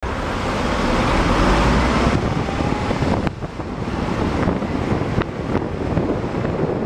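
Wind buffeting the camera microphone over road traffic noise, a heavy low rumble for the first two seconds, with a couple of sharp knocks later on.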